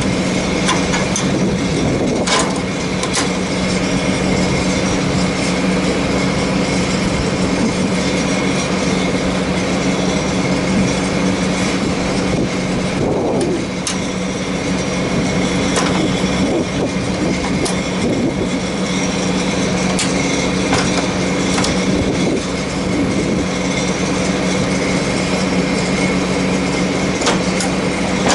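Sharp clicks of a GE90-90B jet engine's cowl latches being released by hand, heard a few times seconds apart. Underneath runs a loud, steady machinery drone with a low hum.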